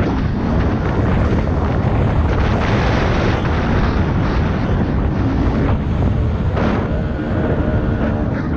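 Heavy wind noise buffeting a helmet-mounted microphone, over a 2020 TM 300 EN two-stroke dirt bike engine running under throttle.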